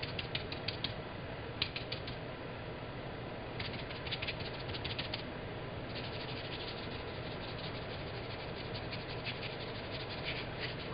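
Round stencil brush stippling paint onto wet fabric: quick runs of soft dabbing taps in several bursts, with short pauses between them.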